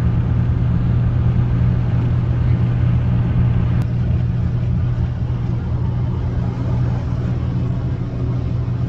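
Steady road and engine noise inside a pickup truck's cab at highway speed: a low hum over a broad rumble, with one faint click about four seconds in.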